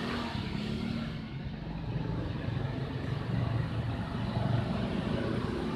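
A motor vehicle's engine running steadily: a low rumble that swells slightly in the middle.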